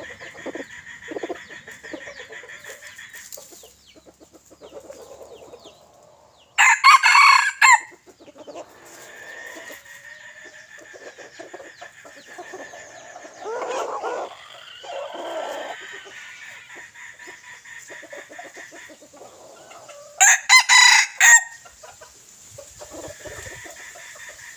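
A junglefowl-type decoy rooster crowing twice, loud and close, each crow short at about a second long, once about a quarter of the way in and again near the end. Softer calls from other chickens come in the middle, over a steady high buzz.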